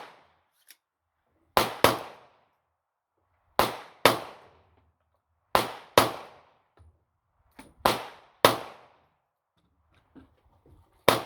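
Gunshots at an outdoor range, about nine in all, mostly in quick pairs about two seconds apart, each shot with a short echoing tail.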